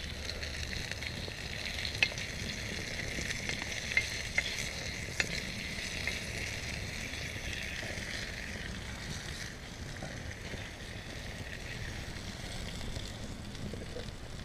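Sausage slices sizzling steadily as they brown in a skillet over an open wood fire, with a few sharp clicks in the first five seconds.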